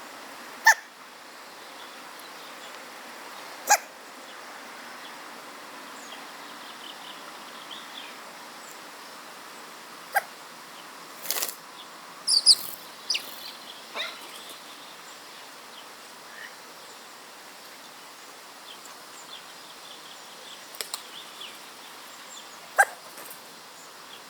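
Hooded crow fledgling hiccuping: about six short, sharp hic sounds, irregularly spaced several seconds apart. A few brief high chirps come about halfway through, over a steady background hiss.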